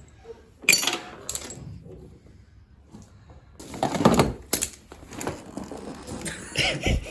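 Metal clanking and knocking, a handful of separate sharp strikes as tools and engine parts hit against each other.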